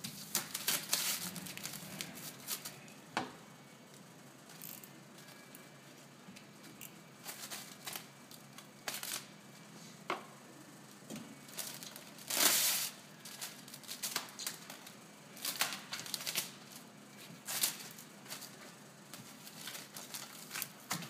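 Clear adhesive protective film crinkling and peeling as it is unrolled from its roll, handled and rubbed down onto a bathtub by hand, in irregular short rustling bursts with a couple of sharp clicks.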